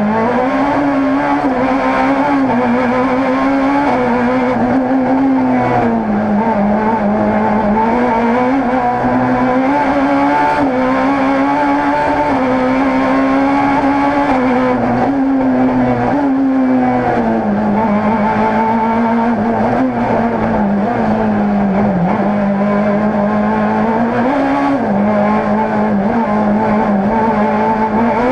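Rally car's engine at high revs, heard from inside the caged cockpit. Its pitch climbs and dips with throttle and gear changes on a twisty stage.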